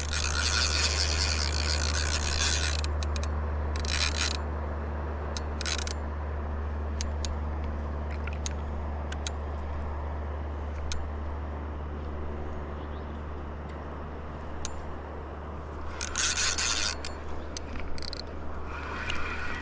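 Fishing reel drag giving line in buzzing bursts as a large fish pulls against it, with scattered clicks in between, over a steady low hum.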